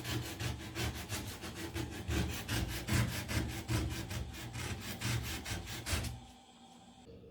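Rapid back-and-forth hand scraping on the rusty body of an old Ardo washing machine, rubbing it down before painting, at about four strokes a second. The strokes stop abruptly about six seconds in.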